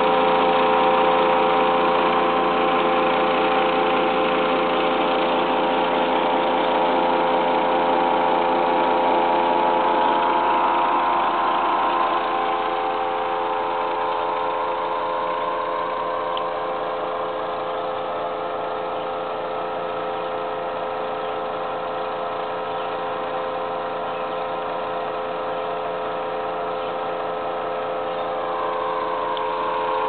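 Outdoor air-conditioner condenser unit running: a steady mechanical hum with fan noise, a little quieter from about twelve seconds in.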